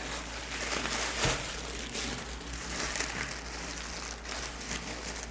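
Plastic packaging crinkling and rustling as a boxed keyboard is unwrapped by hand, with a sharper crackle about a second in.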